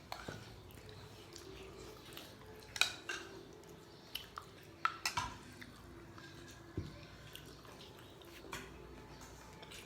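Spoons and cutlery clinking now and then against plates and bowls during a meal: scattered short clinks over a quiet background.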